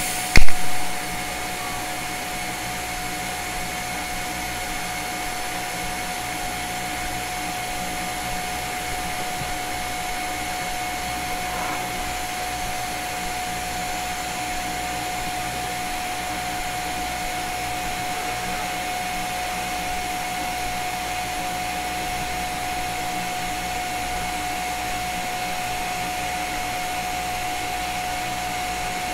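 TIG welding arc on stainless steel: a sharp crack about half a second in as the arc strikes, then a steady hiss with a constant whine while the weave weld runs.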